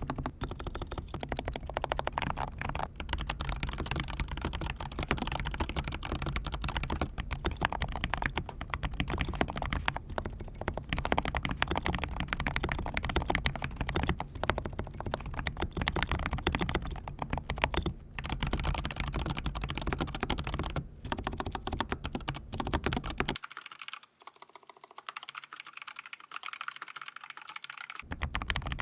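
Fast, continuous typing on a mechanical keyboard with Iced Matcha tactile switches: a dense stream of key clacks with a bubbly, poppy character. For a few seconds near the end the low thock drops away and the clacks sound thinner.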